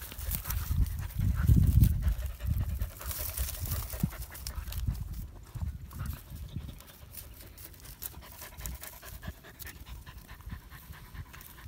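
Dogs panting, with low rumbling thumps in the first three seconds.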